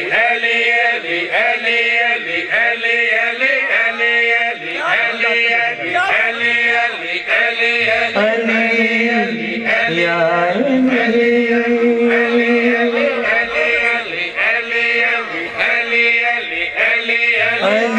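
A man chanting a devotional poem in a sung recitation, his voice sliding and wavering in pitch, with one long held note a little past halfway.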